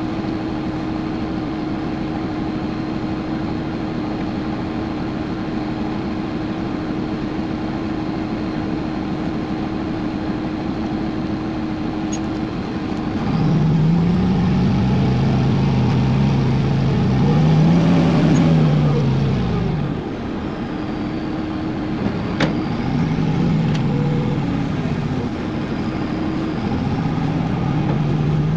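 Diesel engine of a Bell 4206D tile-plow tractor, running steadily at first, then revving up about halfway through as the tractor pulls away, its pitch rising and falling before easing off and rising again near the end.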